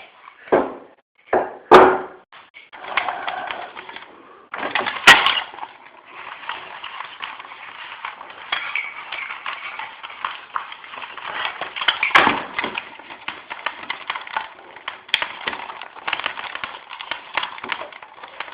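Close handling noise as wire is worked through a bike helmet's vents: continuous scraping and rustling with many small clicks. A few sharper knocks come near the start and about five seconds in.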